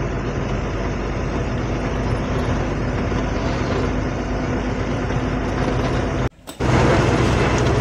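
Steady running of an idling diesel engine, a low hum under an even mechanical noise. About six seconds in it cuts off abruptly for a moment, then a louder, steadier low hum takes over.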